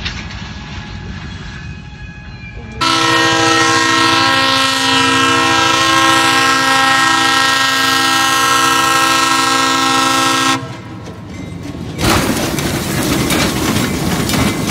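Diesel locomotive air horn sounding one long steady blast of several notes together for about eight seconds, then cutting off. After a short lull comes loud rumbling and scraping as a switcher locomotive pushes a car along the track; before the horn there is a low rumble from a train striking a truck at a crossing.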